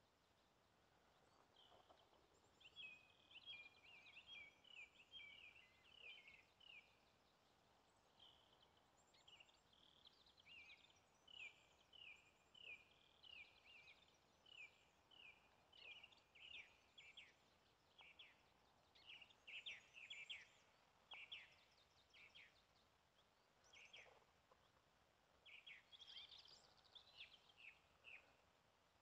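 Faint songbirds chirping: a long run of short, quick notes repeated over and over, with a few louder phrases.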